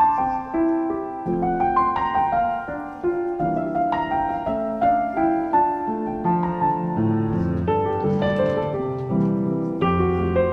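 Background piano music: a gentle melody of single notes over chords, with a lower bass part joining about seven seconds in.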